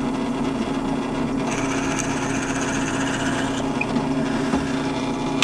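Drill press running with its bit boring into a resin and grapevine bottle stopper blank: a steady motor hum under a rougher cutting noise that is strongest through the middle, then the sound cuts off abruptly at the end. The bore goes easily.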